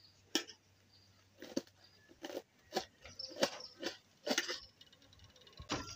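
A kitchen knife cutting through a head of cabbage, about eight crisp crunching cuts at irregular intervals.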